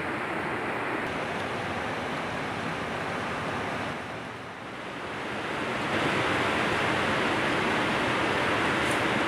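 Steady rush of a river flowing over rocks, dipping briefly about four seconds in and coming back louder from about six seconds.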